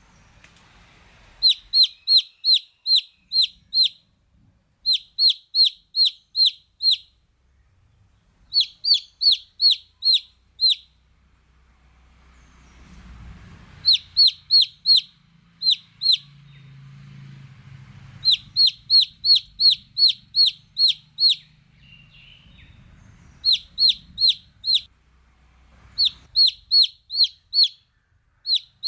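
Baby chicks peeping: runs of six to nine sharp, high, falling peeps, about three a second, separated by short pauses.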